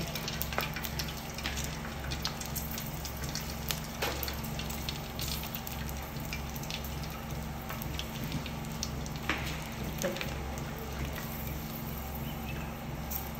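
Small pieces of prawn cracker frying in hot vegetable oil in a pan: a soft, even sizzle with scattered small crackles as the pieces puff up. They were dropped in as a test of whether the oil is hot enough. A steady low hum runs underneath.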